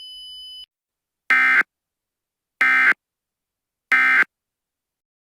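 Three short bursts of Emergency Alert System SAME data tones, each about a third of a second long and a little over a second apart. These are the end-of-message bursts that close an alert.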